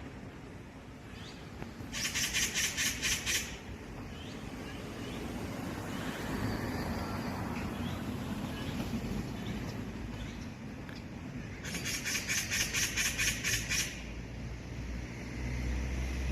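Magpie giving two bouts of rapid, harsh chattering calls, a string of quick repeated notes each time, about two seconds in and again near the end. A steady low rumble runs underneath.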